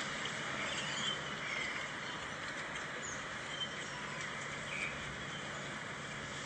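Steady outdoor ambient hiss with a few faint, short bird chirps.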